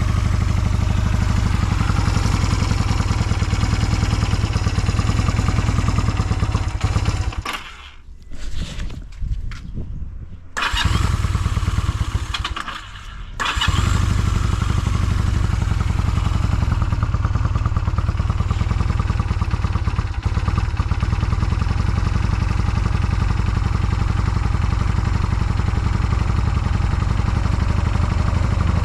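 Honda Rebel 250 (MC13) air-cooled parallel-twin engine idling steadily. The sound falls away twice for a second or two, about seven and twelve seconds in, then picks up and runs steadily again. The seller calls it free of abnormal noises.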